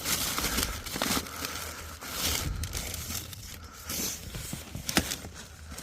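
Rummaging through food bags, with plastic packaging crinkling and rustling in irregular handfuls and a few small knocks.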